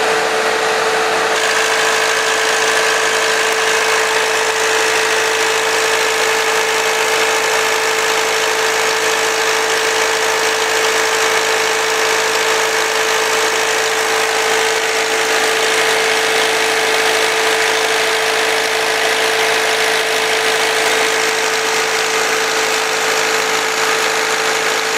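New four-cylinder diesel engine running steadily under load, driving an irrigation pump through a driveshaft and right-angle gearhead, with a steady pitched hum over the engine noise.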